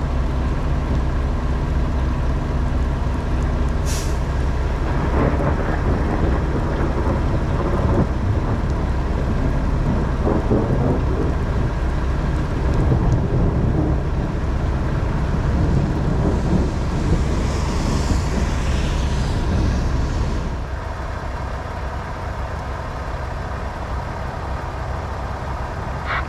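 Diesel semi-truck engine running close by with a low steady drone, a short air hiss about four seconds in, and rumbling that swells through the middle. The engine noise drops away about twenty seconds in.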